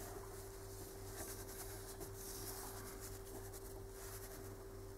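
Faint scratchy rubbing of a cotton swab being dragged across the bottom of a glass dish, over a steady low hum.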